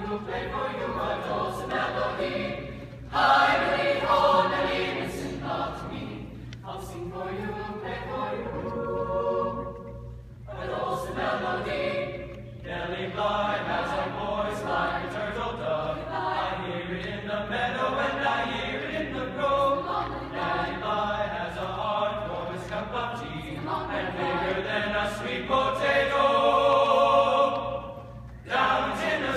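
Mixed-voice high school choir singing in parts, in phrases broken by short pauses for breath.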